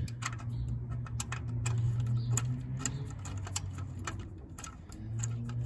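Light metallic clicking, several irregular clicks a second, as the stripped Torx bolt of a Ford Ranger's belt tensioner pulley is spun out by hand on a bit and extension, now broken loose. A steady low hum runs underneath.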